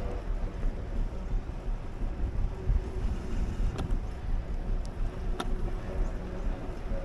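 Wind buffeting the microphone and tyres rumbling along a concrete path while riding. Two sharp clicks come about a second and a half apart in the second half.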